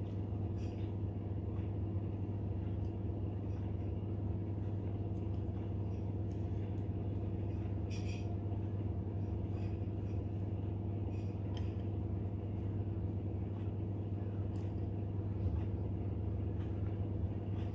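A steady low machine hum, with a few faint clicks, the clearest about eight seconds in.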